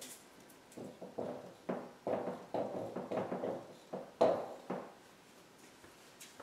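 Dry-erase marker squeaking and scratching on a whiteboard in a run of short strokes as numbers are written, stopping about five seconds in.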